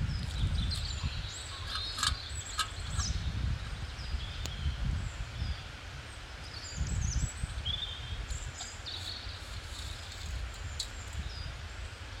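Birds chirping in short calls over a steady low rumble, with a few sharp clicks.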